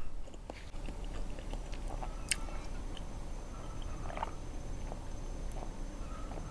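Quiet mouth sounds and a sharp click a little over two seconds in, then a few swallows as milk is drunk from a glass.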